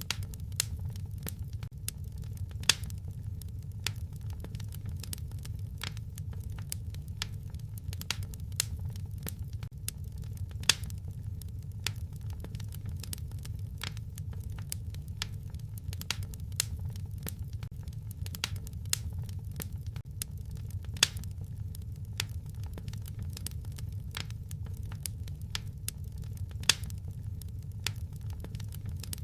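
Wood fire in a fireplace crackling: a steady stream of small snaps, with a few louder pops spread through, over a low steady rumble.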